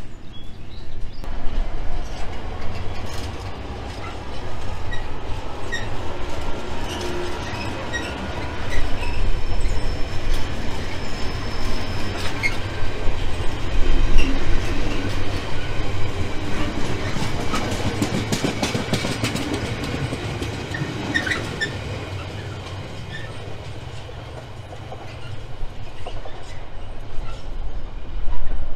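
A long train of empty container flat wagons rolling past: a steady rumble of wheels with rhythmic clicking over the rail joints, busiest in the middle, and occasional thin wheel squeal.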